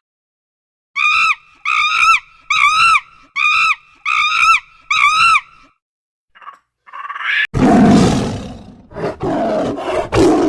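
Six short, evenly spaced animal calls, each rising then falling in pitch. After a pause, a loud, rough roar starts a couple of seconds before the end.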